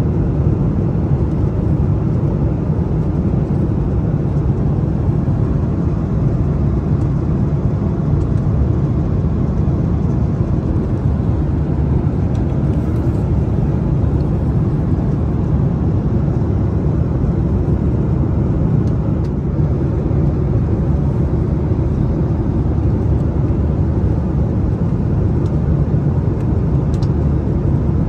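Steady cabin noise of a Boeing 737-800 in flight: an even, low rushing of airflow and its CFM56-7B engines that does not change.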